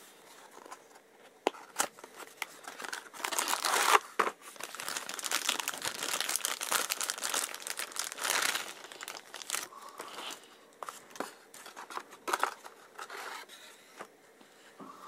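Packaging of a small die-cast toy car being opened by hand: crinkling and tearing with many sharp clicks. It is busiest from about 3 to 9 seconds in, then thins to scattered clicks.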